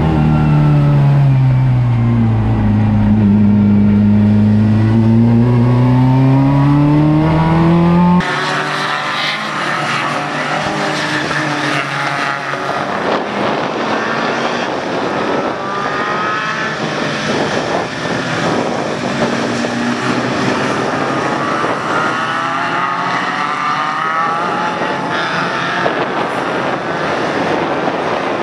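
Race car engine heard from inside the cabin, its revs dipping and then climbing steadily. About eight seconds in it cuts abruptly to several racing cars on a wet track heard from trackside: overlapping engine notes rising and falling over a steady noisy hiss.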